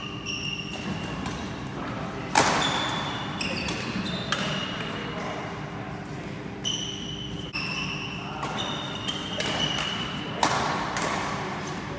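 Badminton rally in an echoing sports hall: sharp cracks of rackets striking the shuttlecock, the loudest about two and a half seconds in, between short squeaks of shoes on the wooden court floor.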